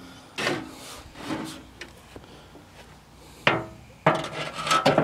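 Sheet-metal side panel of a garden tractor's hood being fitted back on by hand: a few separate metal clanks with a short ring, then a quicker run of knocks and rattles near the end.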